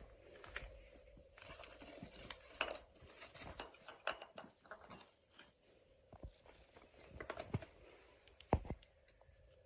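Footsteps crunching over debris and broken glass, with small clinks and knocks. The crunching is densest for a few seconds early on, then gives way to sparser steps and a low thud near the end.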